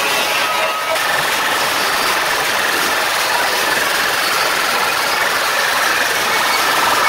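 A huge DJ sound system playing at extreme volume, heard as a loud, steady, distorted noise in which the music is barely recognisable.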